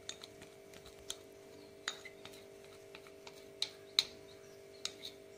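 Plastic measuring spoon tapping and scraping against bowls while scooping powder: a string of light, irregular clicks, a few sharper ones in the middle, over a faint steady hum.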